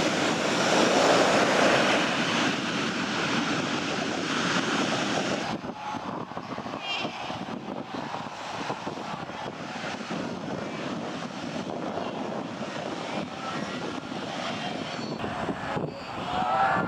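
Heavy ocean surf breaking, loud for about five and a half seconds, then cutting to a quieter steady wash of surf at a Cape fur seal colony, with a brief wavering seal call near the end.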